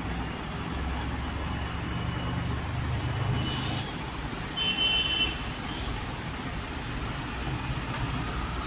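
Steady low background rumble, with a brief high-pitched tone about five seconds in.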